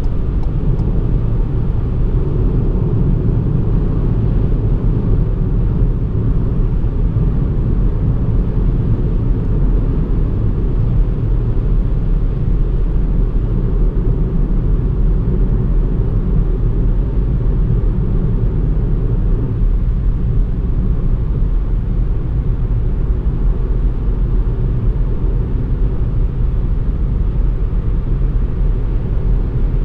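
Ford Fiesta 1.0 EcoBoost three-cylinder turbo car driving at a steady speed: an even, low rumble of engine, tyre and wind noise, with no revving or gear changes.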